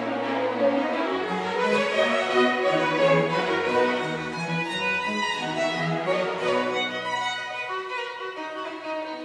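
A solo violin playing with a string chamber orchestra of violins and cellos, the cellos carrying a moving bass line. The music grows a little softer near the end.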